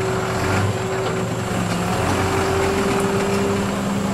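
Ashok Leyland truck's diesel engine running steadily.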